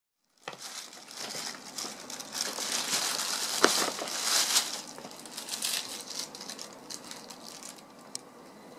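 Paper wrapping of a package crinkling and rustling as it is handled and unwrapped by hand, with a sharp crack a little after three and a half seconds; the rustling dies down near the end.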